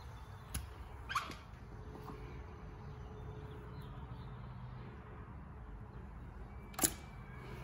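Quiet steady low background hum, broken by a few brief sharp clicks: about half a second in, about a second in with a short falling squeak, and one near the end.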